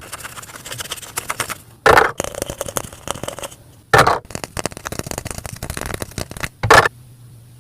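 Small plastic toy kitchen pieces being handled: a run of light clicks, taps and rattles, with three louder knocks about two, four and nearly seven seconds in.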